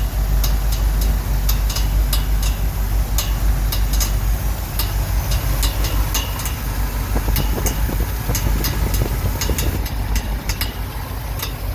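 1969 Ford F100 engine idling with an irregular sharp ticking: the engine cooling fan striking something. The owner finds the fan hitting the radiator, and traces it to a broken plastic fan shroud being sucked into the fan.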